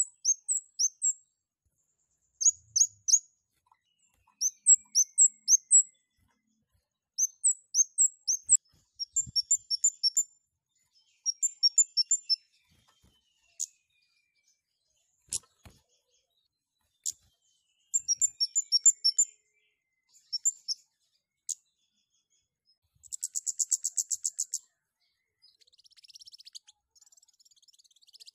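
A caged kemade, a small songbird, chirping in sharp, very high notes in quick runs of three to five with short pauses, then giving a buzzy rattling trill about three-quarters of the way in; two single sharp clicks come in the middle. These are the excited calls of a bird in breeding condition, given as it flutters its wings.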